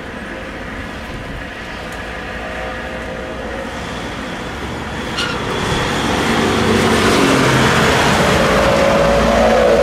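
Airbus A320's IAE V2500 turbofan engines at takeoff power as the jet rolls down the runway, a steady jet roar that grows louder from about halfway through as the aircraft closes on the microphone.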